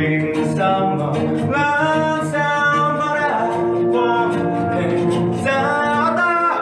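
A young man singing a slow melody into a handheld microphone, holding long notes and gliding between them, over instrumental backing.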